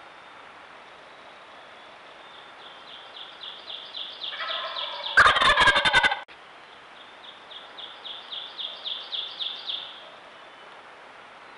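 Wild turkey gobbling once, a loud rattling burst about five seconds in. Around it, a songbird sings two swelling trills of quick high notes, one ending with the gobble and one after it.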